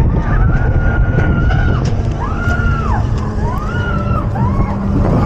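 Roller coaster mine train running on its track, heard from on board: a steady rumble with wind on the microphone. About four high gliding tones rise and fall over it, each lasting under a second.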